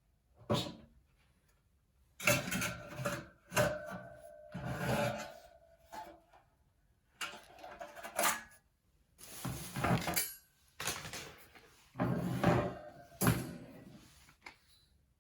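Thin stainless steel tray parts being handled, clinking and scraping against each other in a dozen or so separate bursts, a few with a short metallic ring.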